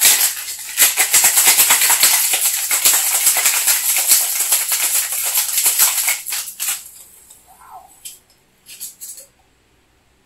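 Metal cocktail shaker shaken hard, its contents rattling fast and dense for about six and a half seconds. The rattle then tails off, with a few light knocks near the end.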